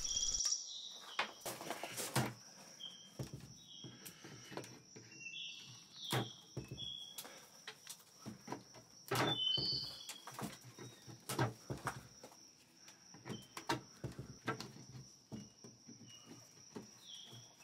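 Scattered small clicks and knocks of pliers gripping and working a painted knob that is glued, not screwed, onto a wooden drawer front. Short high bird chirps come now and then, over a steady faint high whine.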